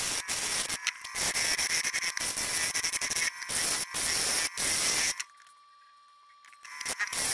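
Gouge cutting into a spinning, out-of-round cherry burl and epoxy blank on a wood lathe: a rough hissing, scraping cut that breaks off and resumes many times. About five seconds in the cutting stops for a second and a half, leaving only a faint steady whine, then starts again near the end.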